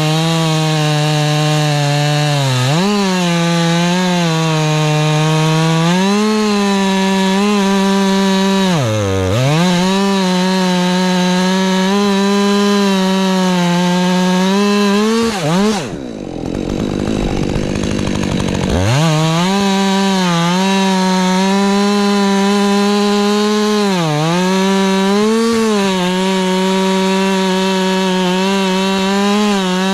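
Husqvarna 550XP Mark II 50 cc two-stroke chainsaw at high revs cutting spruce, its pitch sagging and recovering again and again under load. About halfway through, the throttle comes off and the engine drops briefly toward idle, then revs back up and keeps cutting.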